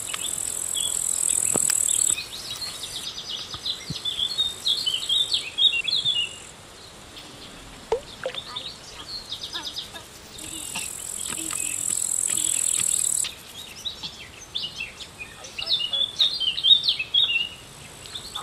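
Birds chirping and calling over a high, steady insect trill. The trill comes and goes, loudest in two stretches of about three seconds each, near the start and about two-thirds of the way through.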